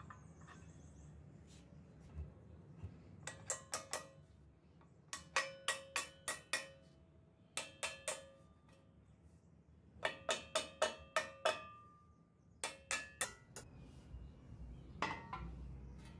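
Small hammer tapping on a grub hoe's steel head and wooden handle to seat the handle in the head's socket. The strikes come in quick runs of three to seven, with pauses between, and each blow rings with a short metallic tone.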